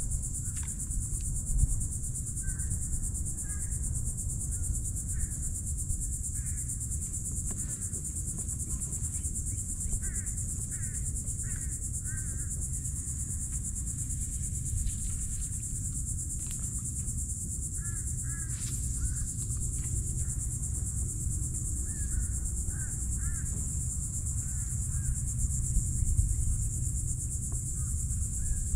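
Steady, high-pitched drone of insects calling without a break, over a low steady rumble, with a few faint short chirps scattered through.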